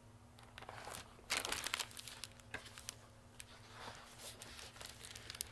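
Picture book being handled and its pages turned, a papery rustling with small crinkles and clicks, loudest about a second in.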